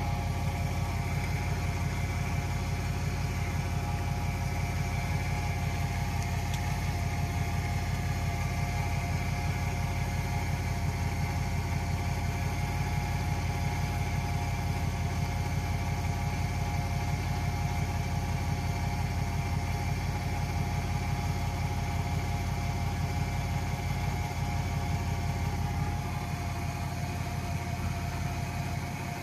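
An engine idling steadily, its low, even running note unchanged, dropping slightly in level near the end.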